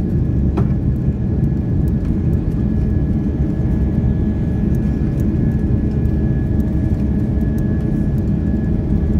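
Boeing airliner's jet engines running with a loud steady rumble, a thin steady high-pitched whine held over it throughout.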